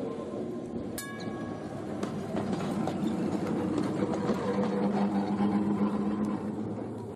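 Heritage electric tram running on its track, with wheels rumbling and clicking over the rails and growing louder, and a humming tone in the later seconds. There is a short metallic ring about a second in, and the sound cuts off abruptly at the end.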